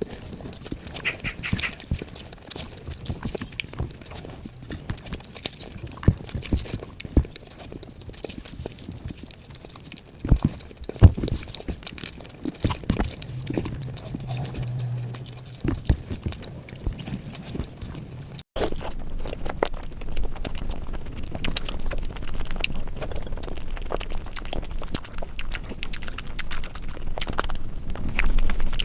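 Close-miked ASMR eating sounds: irregular wet chewing, lip smacks and mouth clicks from soft, saucy food such as curry, dal and omelette. There is a brief cut in the sound about two-thirds of the way through, after which a low rumble sits under the chewing.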